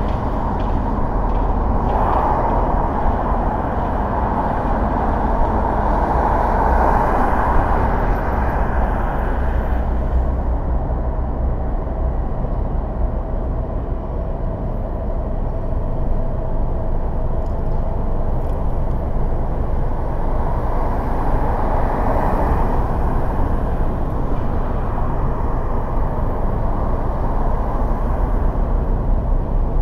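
A car driving on city streets: steady road noise of tyres and engine, with a deep rumble underneath. It grows louder for several seconds near the start and again about two-thirds of the way through.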